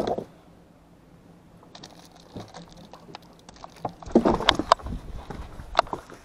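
Handling noises in a fishing boat: scattered clicks and light knocks, then a burst of louder thumps and clatter starting about four seconds in and lasting some two seconds.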